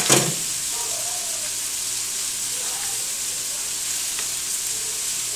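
Brussels sprouts and bacon sizzling steadily in a frying pan, an even high hiss.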